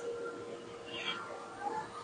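Faint steady hiss of gas torch flames heating glass, with a thin steady tone underneath.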